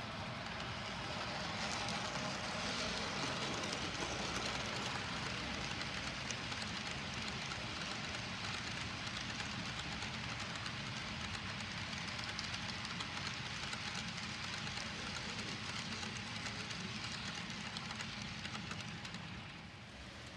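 Model train of hopper cars rolling past on the layout's track: a steady rush of small metal wheels on rail. It grows louder about two seconds in and drops off just before the end.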